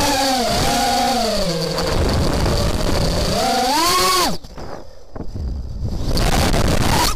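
Crusader GT2 quadcopter's motors and propellers whining, the pitch rising and falling with the throttle as it flips. About four seconds in the throttle is cut and the whine drops away to a low rumble, then it comes back about six seconds in and cuts off again at the end.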